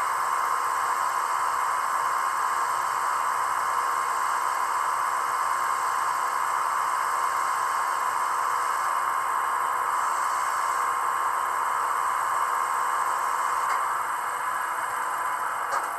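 Small electric motor of an N-scale Fleischmann BR 716 Beilhack snow-blower model running with a steady high whine and hiss. It eases off a little near the end.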